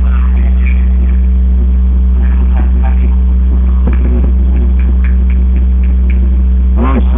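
A loud, steady low electrical hum, with faint distant voices; near the end a voice calls out more loudly.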